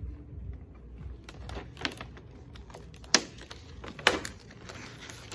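Collectible toy packet being handled and torn open: irregular crinkling and sharp clicks of the wrapper, the loudest snaps about three and four seconds in.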